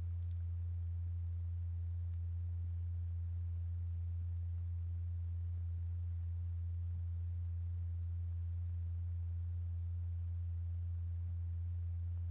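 A steady, low pure tone from the sine-wave vibration exciter driving the cymatics experiment, holding one unchanging pitch. It is the vibration under which the kaolin mass is solidifying.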